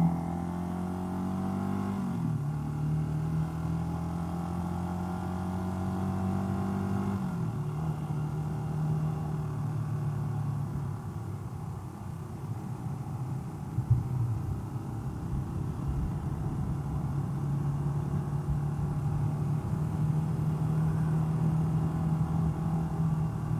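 A Honda XLR250R's single-cylinder four-stroke engine running under way, heard from the rider's helmet with road and wind noise. The engine note climbs with a dip about two seconds in and drops about seven seconds in, then holds a steadier, lower cruise. There is a single knock about fourteen seconds in.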